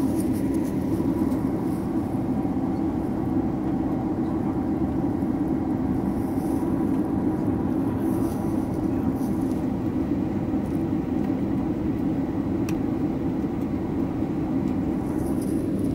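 Steady cabin drone of a Boeing 767-300ER in flight, heard from a seat beside the wing: a low rumble of engine and airflow with faint steady engine tones over it.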